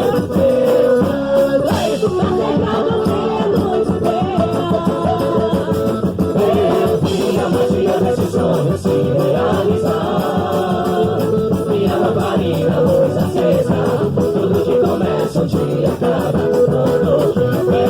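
Loud music from a quadrilha junina song: singing over instruments.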